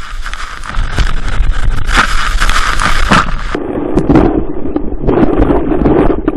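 Rushing wind and water hissing over the microphone during the plunge down a steep free-fall water slide. About halfway through the high hiss cuts off suddenly and the sound turns muffled and lower as the rider hits the water at the bottom.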